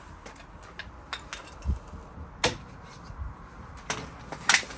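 Scattered light clicks, knocks and clinks of tools and a drilling jig being handled and set down on a door, with one low thud about a third of the way in and a sharper clack about halfway.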